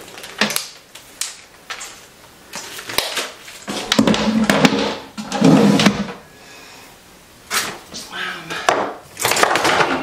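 Hair tools and their cords being handled and set into an open wooden vanity drawer: scattered knocks, clicks and rustles, busiest in the middle.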